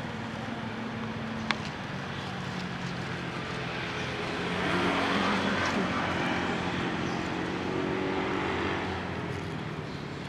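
A motor vehicle's engine running steadily, getting louder about halfway through and then easing off, as if passing by. One sharp click about a second and a half in.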